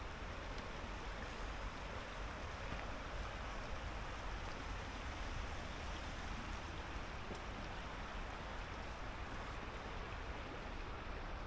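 River water flowing steadily over a shallow rocky bed, an even rushing sound with a low rumble underneath.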